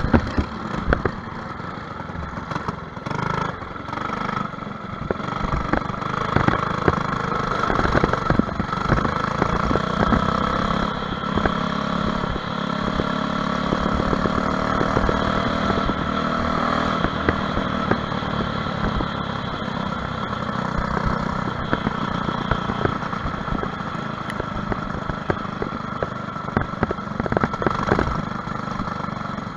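Briggs & Stratton LO206 single-cylinder four-stroke kart engine running at racing speed, heard onboard, its pitch rising and falling as the kart speeds up and slows through the turns.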